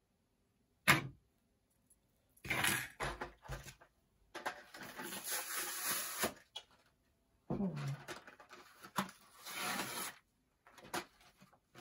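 Plastic blister packs of HO scale model railroad track being handled and set down on a table: a sharp click about a second in, then several bursts of crinkling and rustling.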